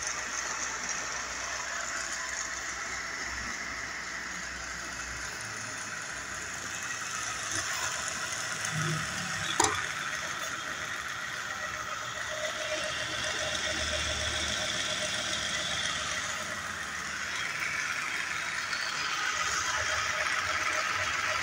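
Sanches Blanes geared column drill press running at a higher spindle speed: a steady mechanical hum from the motor and gearhead, with one sharp click about halfway through. It runs smoothly, in normal working order.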